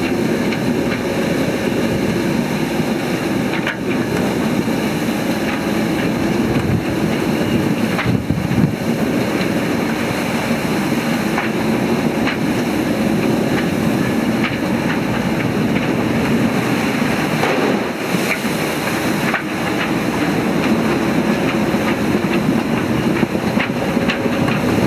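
Strong wind and heavy sea rushing past a sailing yacht under way in rough weather: a loud, steady rushing rumble with a few brief louder surges.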